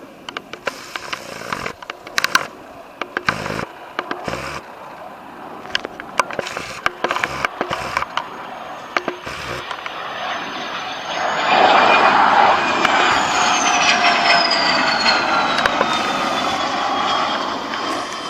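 F-16 fighter jet passing low: its engine noise builds to a loud roar about two-thirds of the way in, with a high whine that falls steadily in pitch as the aircraft goes by. Before it, scattered sharp clicks and crackles sound over a low background rumble.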